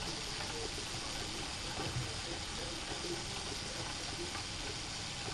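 Wilesco D375 live-steam toy engine hissing steadily, with faint irregular bubbling or gurgling from its boiler.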